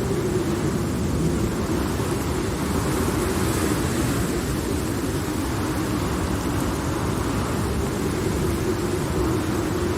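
Steady low rumble of a thunderstorm ambience, distant rolling thunder under rain, with no sharp crack.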